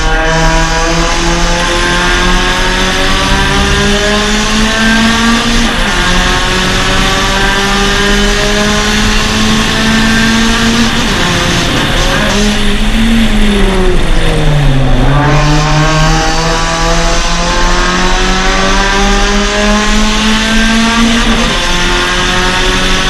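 Suzuki Swift Sport's 1.6-litre four-cylinder engine at racing pace, heard on board: the pitch climbs under full throttle and drops at an upshift about six seconds in. Past the middle the pitch sinks for a few seconds as the car slows, then climbs again to another upshift near the end, over steady wind noise.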